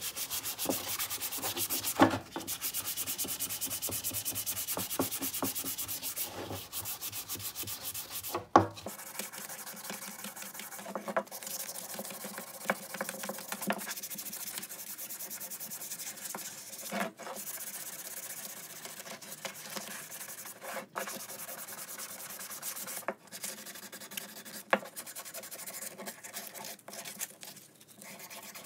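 Sandpaper rubbed by hand over a wooden hand-saw handle, a scratchy hiss in fast, even back-and-forth strokes that turn slower and more irregular after about nine seconds. A couple of sharp knocks, about two and eight seconds in, are the loudest sounds.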